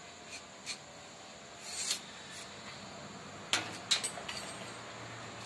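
Faint handling sounds of pipe fittings being worked at the base of a downpipe: a few light clicks, a short scrape just before two seconds in, and two sharper clicks a little past halfway.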